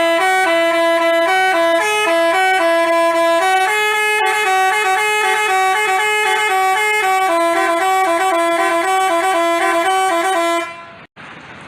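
Basuri telolet bus horn playing a fast melody of short, quickly changing notes, then cutting off near the end.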